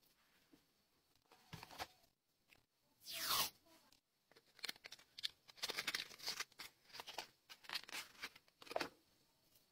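Paper and washi tape being torn and handled. One long rip comes about three seconds in and is the loudest sound, followed by a run of short crackling tears and rustles.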